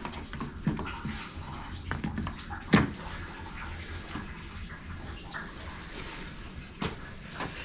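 Antifreeze draining out of a Renault Logan's opened cooling system, running and splashing steadily onto the floor and into a bucket, with a sharp knock about three seconds in.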